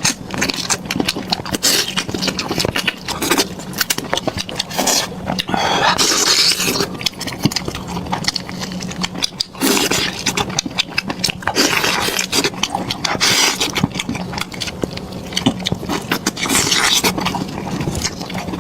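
Close-miked eating sounds: a person chewing soft, wet food with loud, irregular smacks and squelches, over a steady low hum.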